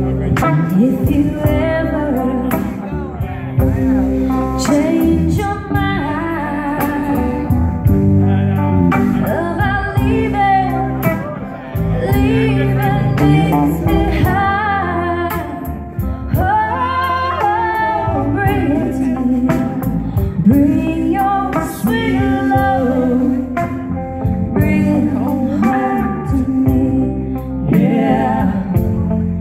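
Live band playing, with a woman singing lead over electric guitars, bass and drums.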